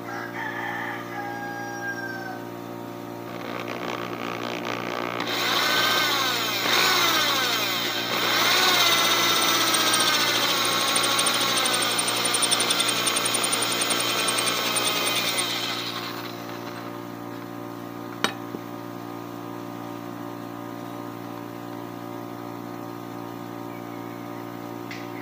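Electric hand drill boring into the steel spine of a knife blade: a loud, high screeching of the bit cutting metal with wavering squeals from about four to sixteen seconds in, over a steady motor hum. A single sharp click comes later.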